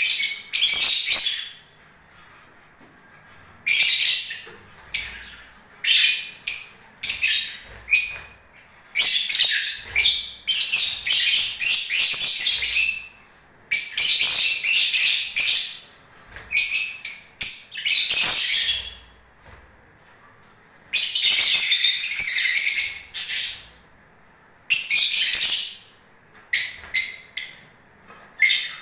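Lovebirds chattering in high-pitched bouts of a second or two, broken by short pauses.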